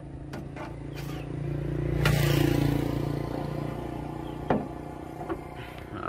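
A road vehicle passing close by, swelling to its loudest about two seconds in and then fading away, over a low steady hum, with a single sharp click about four and a half seconds in.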